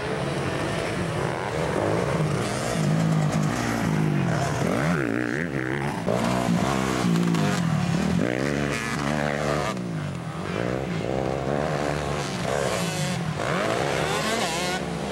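Several motocross dirt bike engines racing together, their pitch rising and falling over and over as the riders rev, shift and back off around the track.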